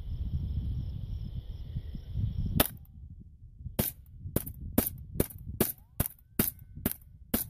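Ruger 10/22 semi-automatic .22 LR rifle firing a string of about ten shots, alternating CCI Standard Velocity (subsonic) and CCI Stinger (supersonic hypervelocity) rounds. The first shot comes about two and a half seconds in, then after a short pause a steady rapid fire of roughly two to three shots a second. Before the first shot there is wind rumble on the microphone.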